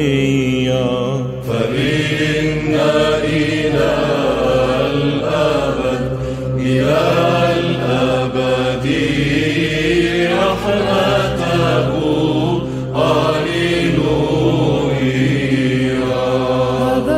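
Byzantine chant sung in Arabic: a long, ornamented vocal line winding up and down over a steady held low drone note.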